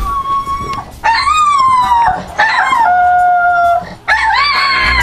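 A dog howling: four long howls with short breaks between them, the second sliding down in pitch and the third held at one steady pitch.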